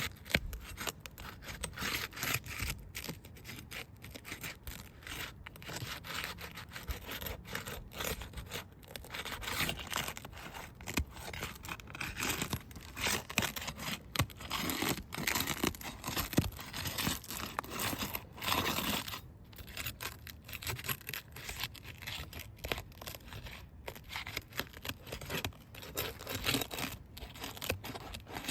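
A sealed-down Vogeler roof shingle being unsealed by hand, with repeated tearing and scraping as its sealed tabs are pulled loose.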